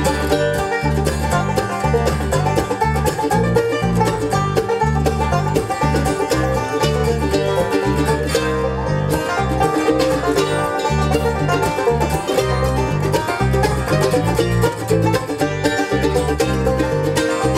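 Bluegrass band playing at a steady tempo: a five-string resonator banjo picks rapid rolls out front over mandolin, guitar and a walking bass line.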